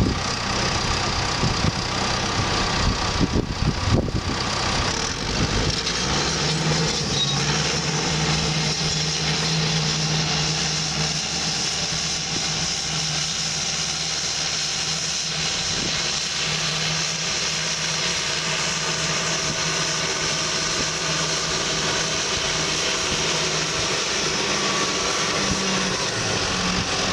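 Bulldozer's diesel engine running steadily, with a few loud knocks around three to four seconds in.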